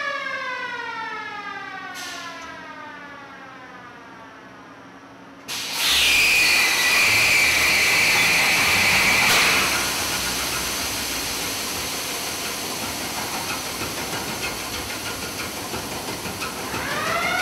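A siren-like wail, falling slowly in pitch, fades over the first few seconds. About five and a half seconds in, a sudden loud hissing rush starts with a high steady whine for a few seconds, then settles into the steady noise of a large two-stroke marine diesel engine running. The wail rises again near the end.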